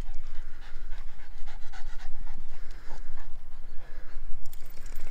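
A Boston Terrier panting, catching its breath after running and playing.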